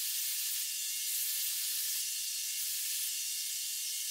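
Belt grinder running a non-woven Scotch-Brite belt with a steel hammer head held against it for polishing: a steady hiss.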